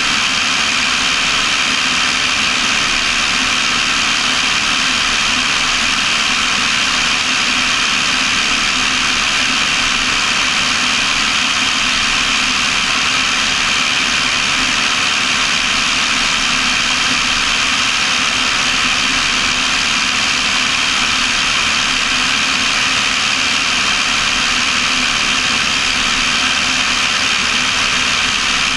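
Cessna 172's piston engine and propeller droning steadily in flight, mixed with the rush of airflow, with no change in power.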